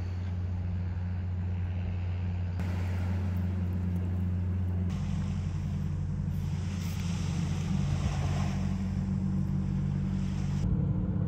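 Steady low hum of an idling engine over a haze of wind and surf noise. It changes abruptly about two and a half and five seconds in and again near the end.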